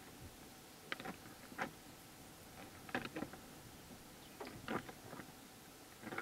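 Gemsbok (oryx) horns clacking together as two animals fight: about half a dozen sharp, irregular knocks, some in quick pairs.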